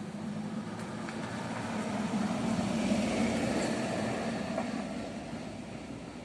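A motor vehicle passing: a steady low engine hum that grows louder to a peak about three seconds in, then fades away.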